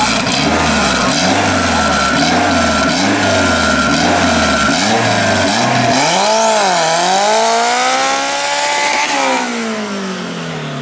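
Honda Civic drag car's engine revving at the start line: short rises and falls in pitch at first, then about six seconds in a long rev that dips and climbs for about three seconds before falling away near the end.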